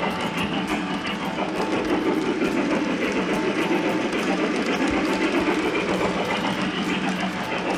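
Model Mikado steam locomotive and its train running along a shelf layout: a steady rumble of wheels on the track and motor, with fast light clicking.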